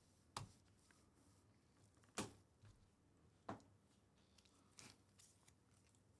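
Near silence: quiet room tone with four faint, sharp clicks spread over the first five seconds, the second the loudest.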